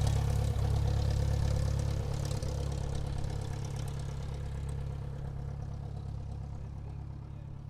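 Airplane engines running at low taxiing power, a steady low hum with a few even tones above it, growing steadily quieter as the plane taxis away or the track fades out.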